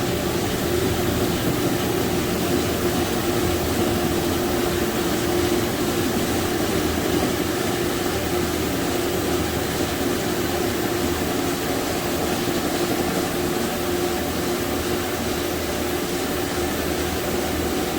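Carpet-cleaning hot-water extraction machine running steadily: an even rush with a steady hum.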